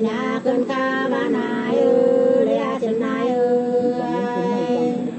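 Women singing sli, the unaccompanied Nùng folk song of Lạng Sơn, in long held notes that bend and slide in pitch between them.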